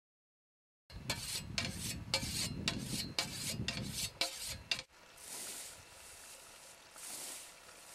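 A scythe blade being whetted with a sharpening stone: quick scraping strokes, about four a second, for about four seconds. Then the scythe swishes through standing grass in mowing strokes, one about every two seconds.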